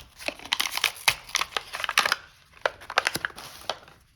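Stiff plastic packaging crackling and crinkling as it is pried and torn open by hand, a fast run of sharp cracks that stops shortly before the end.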